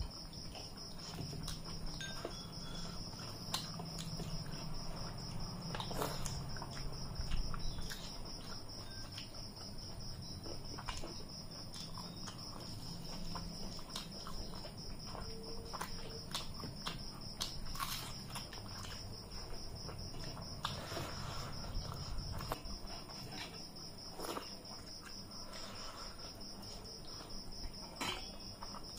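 Eating by hand: chewing, mouth sounds and fingers mixing rice against metal plates, heard as scattered small clicks, over a steady high trill of crickets.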